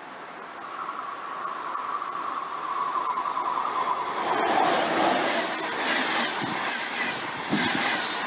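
A train approaching and passing at speed: a whining tone swells and drops a little in pitch, then from about four seconds in a sharp click gives way to loud rushing wheel-on-rail noise with rapid rhythmic clatter.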